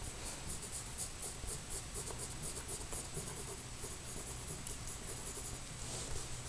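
Graphite pencil scratching on drawing paper in quick, short back-and-forth shading strokes, stopping shortly before the end.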